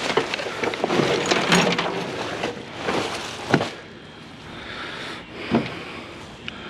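Scrap being handled: a busy stretch of rattling and clattering with sharp knocks, going quieter after about four seconds with one more knock later on.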